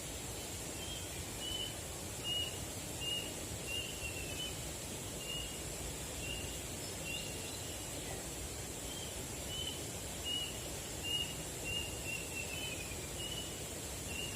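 A bird calling in a long series of short high notes, about one or two a second, some sliding down in pitch, over a steady low background rush.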